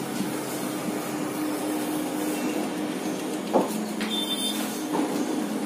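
Steady machine-like background hum with a faint low tone throughout, broken by a short knock about three and a half seconds in and a softer one at about five seconds.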